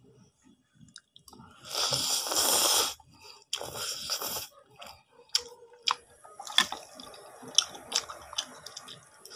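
Eating hot noodles with moringa leaves: two long breathy rushes of air, about two seconds in and again around three and a half seconds, the second a slurp of noodles into the mouth. Soft wet chewing and lip smacks follow.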